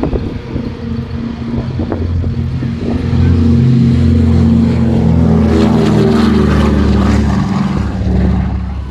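Propeller aircraft on its takeoff run at full power. It grows loud about three seconds in and passes close, its engine note dropping in pitch as it goes by.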